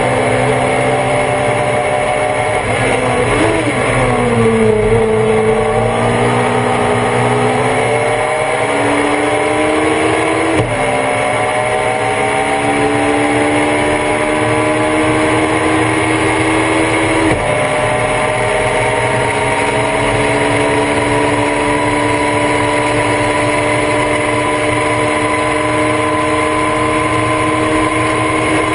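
Race car engine heard on board the Thunder Roadster while driving. The revs dip about three to five seconds in and then climb, with a sudden drop in pitch from an upshift about ten seconds in and another about seventeen seconds in, followed by a slow, steady climb.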